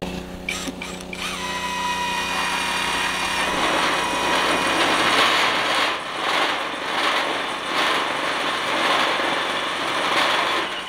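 Cordless drill driving a self-drilling roofing screw through a steel roofing sheet. The motor whine starts about a second in and turns rougher and noisier from about three and a half seconds on as the screw cuts into the metal.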